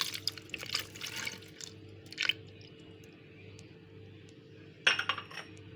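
Pineapple juice poured into a blender jar, splashing in a few short spells over a faint steady low hum.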